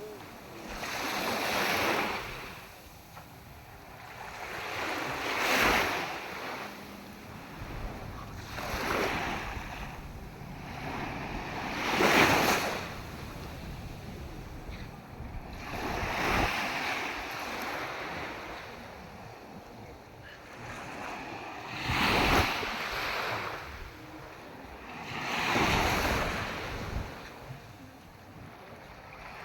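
Sea waves washing onto a shore, each surge rising and falling away every three to six seconds, with wind rumbling on the microphone.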